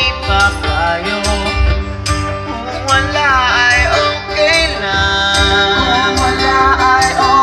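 Live band playing on acoustic guitars and drums, with a voice singing a wavering melody over a steady beat.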